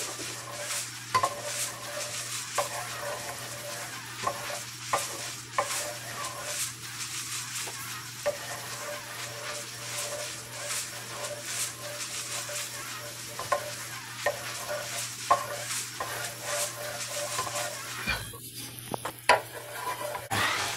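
Wooden spoon stirring and scraping brown sugar in a hot ceramic-coated frying pan, with irregular clicks of the spoon against the pan, as the sugar bubbles and sizzles while it caramelizes into browning.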